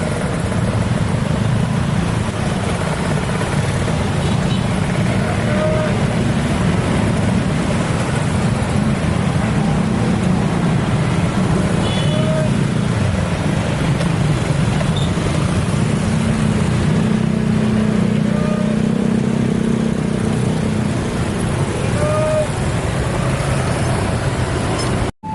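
Steady road traffic noise at a busy level crossing: engines and tyres running continuously, with a few short high beeps now and then.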